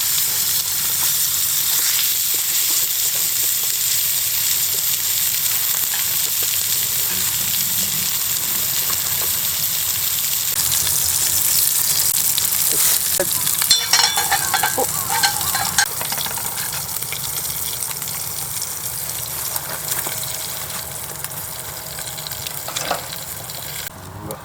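Food sizzling and frying on a hot camp grill or pan, a steady hiss, with a clatter of utensils about halfway through.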